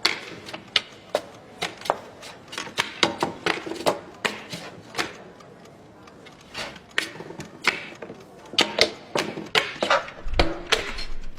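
Foley sound effects: an irregular run of sharp taps, clicks and knocks, several a second, some louder than others.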